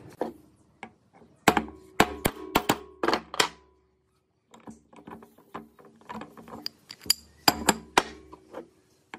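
Metal parts and tools knocking and clinking against an old hammer drill's opened metal gearbox housing as its gear is worked loose and taken out. Two clusters of sharp, ringing knocks, the first about one and a half seconds in and the second near the end, with lighter clinks between.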